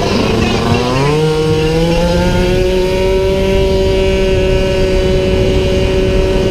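48cc racing scooter's small engine revving up sharply about a second in, then holding a high, steady pitch under hard throttle, with wind rushing over the onboard microphone.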